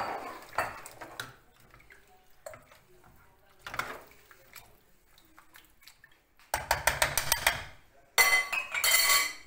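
Cooking pot and utensils clattering: scattered light clinks and knocks, then two busy stretches of metal clanking and scraping near the end, the second with a ringing metallic tone.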